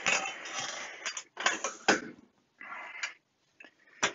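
Handling noise from a Fluke 8810A multimeter's circuit-board assembly and a loose flat panel being moved about on a workbench: irregular scraping and rustling with several sharp knocks, one near the end.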